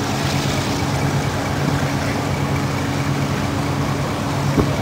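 A heavy diesel engine running steadily at an even pitch.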